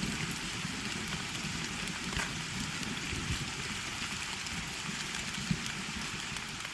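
Steady heavy rain falling, an even wash of noise.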